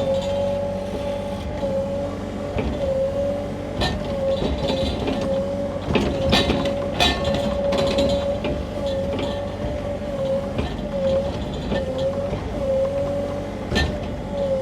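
Sany mini excavator working at raised throttle: diesel engine running with a steady high hydraulic whine that dips and wavers as the controls load it. Sharp knocks and clanks from the bucket digging come about 4, 6 and 7 seconds in and again near the end.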